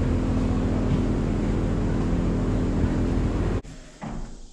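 A steady machine hum with several fixed low tones cuts off suddenly about three and a half seconds in. A faint knock follows.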